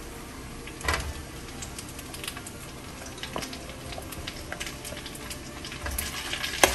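Butter and chopped garlic crackling gently in a frying pan, with scattered small ticks and a couple of louder knocks, about a second in and near the end, as mushroom pieces are dropped into the hot butter.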